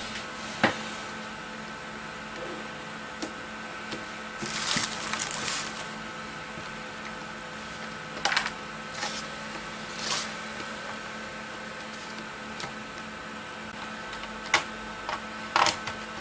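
Scattered light clicks and short rustles of hands handling a laptop's plastic parts and cable connectors during disassembly, over a steady electrical hum.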